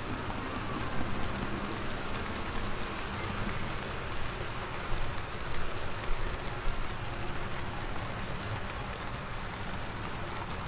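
HO scale model freight cars rolling past on the track: a steady rattling patter of small metal wheels on the rails and joints, with a few louder clacks about a second in and again around five to six seconds.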